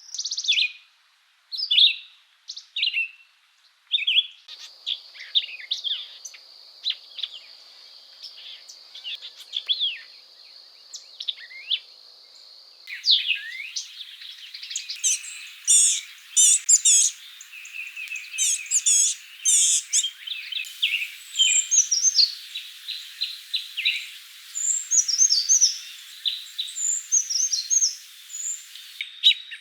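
Wild songbirds singing and calling in a run of short, high whistled phrases and trills. The recording cuts several times between different birds, about every eight seconds.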